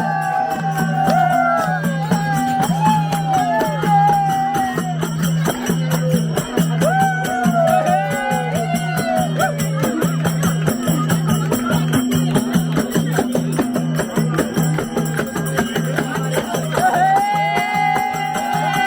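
Traditional folk-style music: a steady low drone under a melody of sliding, bending notes, with shaken, jingling percussion keeping a regular beat.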